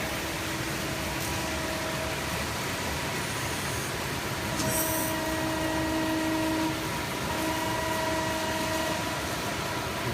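Hydraulic press brake running, its pump and motor hum rising in and dropping out several times over a steady workshop machine noise, with one sharp metallic click about four and a half seconds in.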